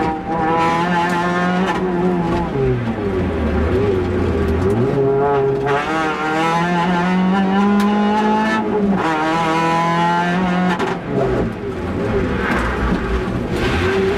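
Peugeot 206 rally car's engine heard from inside the cabin, revving hard and falling as the driver works through the bends. The revs climb, drop sharply about three seconds in and stay low, climb again until a dip around nine seconds, hold, then fall away.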